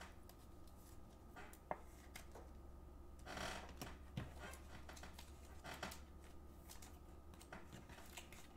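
Faint handling of trading cards, plastic sleeves and card holders on a table: a few soft clicks and taps, with a brief rustle about three and a half seconds in, over a low steady hum.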